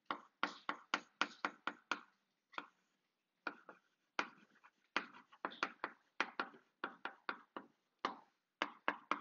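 Chalk writing on a blackboard: quick runs of sharp taps and short scrapes as each letter is stroked out, with a brief pause about three seconds in.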